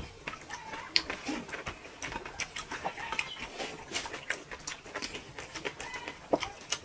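Two people eating rice and prawn curry with their hands: a steady run of wet clicks and smacks from chewing and from fingers squeezing rice on the plates, with a few short squeaky chirps.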